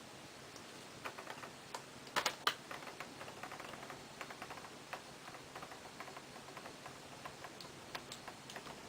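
Screwdriver driving small screws into a laptop's plastic screen bezel: a run of irregular faint clicks and ticks, with a few sharper clicks about two seconds in.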